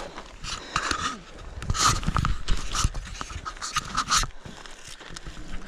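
A hiker breathing hard in short, irregular puffs while climbing a rocky slope, over a low rumble on the microphone.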